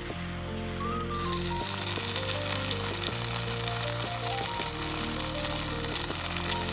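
Food frying in a hot pan, a steady sizzle that grows louder about a second in. Background music plays underneath.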